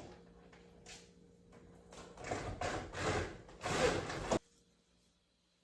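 A window blind being tugged and worked by hand: a run of scraping, rustling strokes that grow louder, the loudest just before the sound cuts off suddenly about four seconds in.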